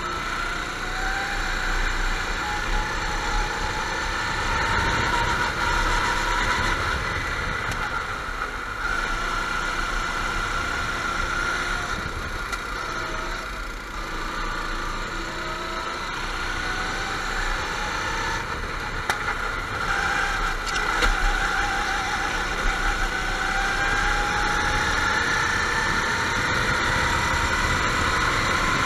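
Several go-kart engines running hard on a track, overlapping. Their pitch rises and falls again and again as the karts accelerate and lift off.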